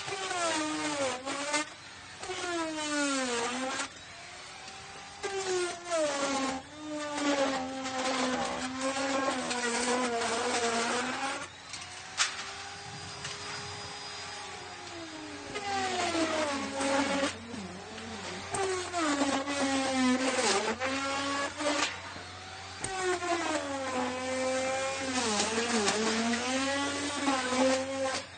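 Electric router cutting into wood: the motor's whine sags in pitch as the bit takes load in the wood and climbs back as it frees, over and over in several passes. There is a quieter, steadier stretch about halfway through.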